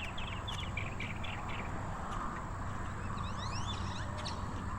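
Birds chirping: a quick run of repeated chirps in the first second and a half, then a few fast rising calls around three seconds in, over a steady low hum.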